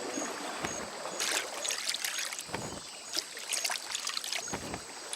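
Water sloshing and splashing in irregular bursts, as if something is moving through shallow water.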